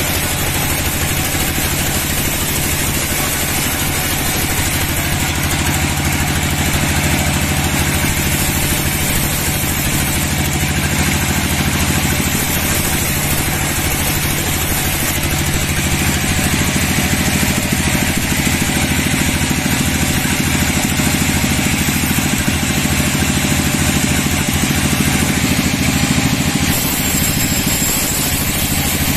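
Sawmill band saw running, its blade cutting lengthwise through a dry teak log: a steady low machine drone under a continuous high cutting noise.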